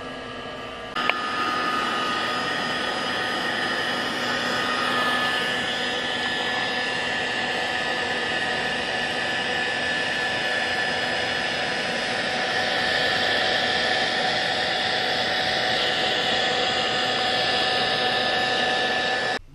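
Heat gun running steadily, a rush of air with a steady whine, starting abruptly about a second in and cutting off near the end. It is blowing on sanded red dirt bike plastic to melt the surface smooth.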